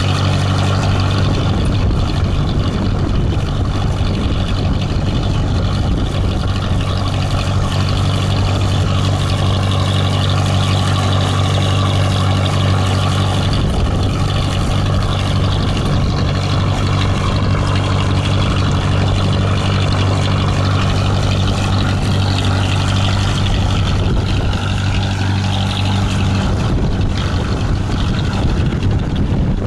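A 35-foot sailboat's inboard diesel engine running steadily under way, a constant low drone that changes slightly near the end.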